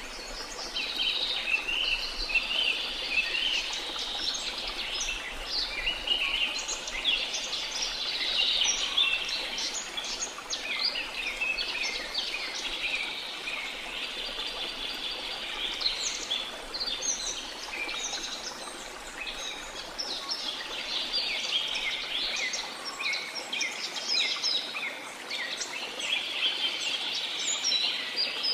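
Many birds chirping and trilling at once in a dense, continuous chorus, over a faint steady hiss of falling water.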